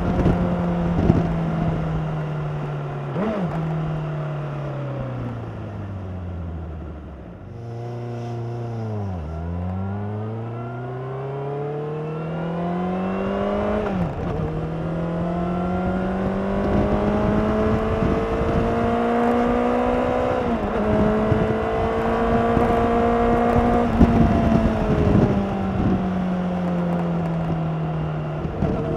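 Honda CBR600RR inline-four on its stock exhaust running under way: the engine note falls as the bike slows, dips sharply and climbs again, then rises through two upshifts, about halfway and about two-thirds of the way through, before easing off near the end.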